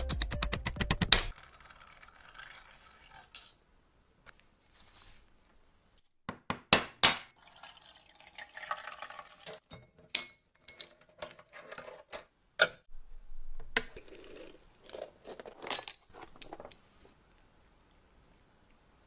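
Scattered clinks, taps and scraping from small metal lighter parts being handled and worked on, with quiet gaps between them. Music stops about a second in.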